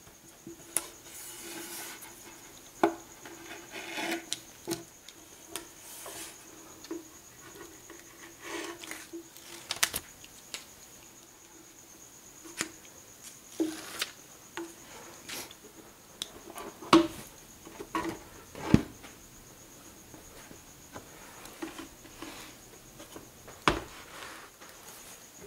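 Adhesive tape being worked onto a plywood shelf by hand: rubbing and scraping as it is pressed down, with several sharp knocks against the wood, and carpet being laid on near the end.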